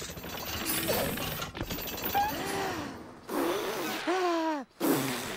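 Cartoon mechanical sound effects: a ratcheting, gear-like clatter, with a few short pitched sounds that bend up and down in the second half.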